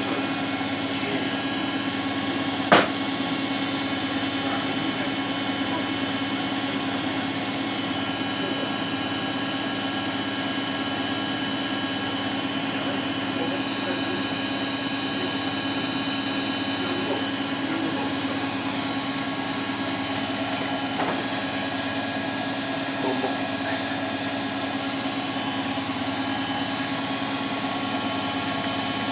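Beko WMA 1510 washing machine spinning at high speed in its final spin: a steady, even whine with many pitches layered together. One sharp click comes about three seconds in.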